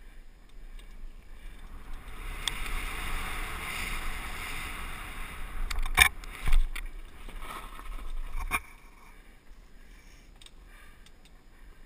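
Wind rush and tyre noise from a mountain bike ridden fast down a dirt trail, heard through a helmet-mounted camera, building over the first few seconds. A few sharp knocks from the bike come about six seconds in, with a last one at about eight and a half seconds, after which the noise drops away as the bike slows.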